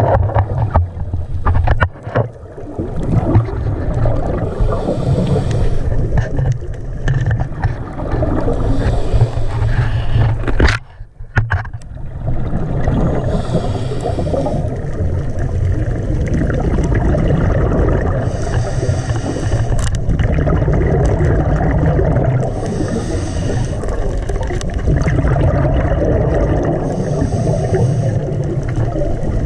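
Muffled underwater rumble of moving water, with short hissing swells every few seconds. It drops away briefly about eleven seconds in.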